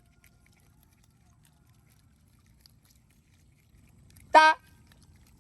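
A single short, loud animal call with a clear pitch, about four seconds in, over a quiet background.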